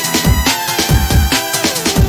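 Electronic drum and bass music: fast, driving drum hits over deep bass notes that swoop downward, with sustained synth tones.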